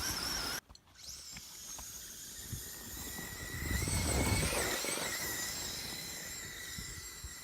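Radio-controlled car's electric motor whining as it drives, the high whine wavering in pitch with the throttle. It cuts out briefly under a second in, then comes back and swells about four seconds in.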